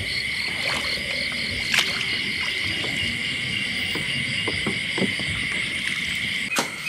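Night chorus of crickets and other insects trilling steadily, with a few faint knocks. Sharp clicks come near the end.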